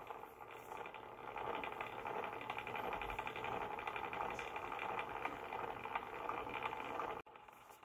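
Small electric motor of a motorized display turntable running, with a fast, even gear rattle. It cuts off suddenly about seven seconds in.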